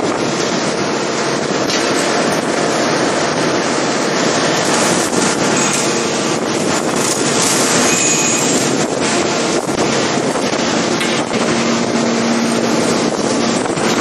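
Steady loud rushing din of heavy forging machinery running, with a faint hum and a few faint knocks in it.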